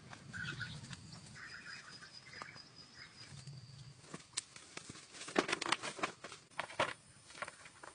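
Long bamboo poles dragged and handled over dry ground, knocking and rattling against each other, with a run of sharp clatters from about five to seven seconds in. A faint thin high tone sounds from about a second and a half to four seconds in.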